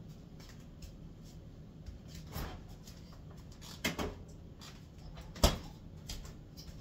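Refrigerator door opened and shut, with a few soft knocks and one sharper thump about five and a half seconds in as the door closes.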